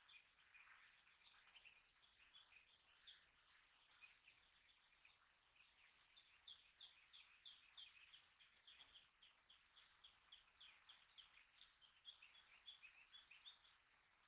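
Faint birds chirping in quick runs of short, high chirps over quiet outdoor background noise.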